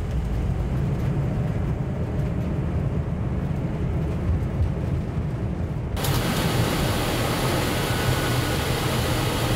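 Jet airliner flight-deck noise: a deep, steady rumble on the runway. About six seconds in it cuts abruptly to a brighter, steady hiss of rushing air over the same low rumble.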